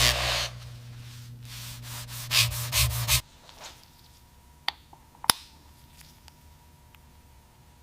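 Rhythmic rubbing strokes of sanding over a low steady hum, both stopping abruptly about three seconds in; two sharp clicks follow.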